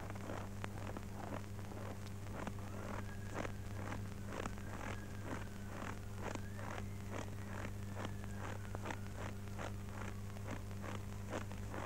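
Footsteps crunching through snow, about three steps a second, over a steady low hum.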